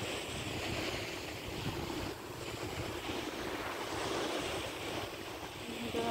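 Sea surf washing on a beach, with wind rumbling on the microphone.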